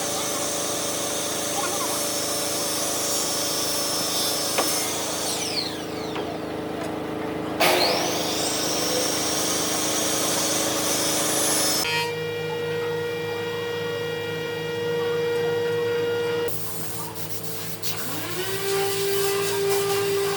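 Power tools running in a workshop, in several short segments that change abruptly. Near the end a motor spins up to a steady whine.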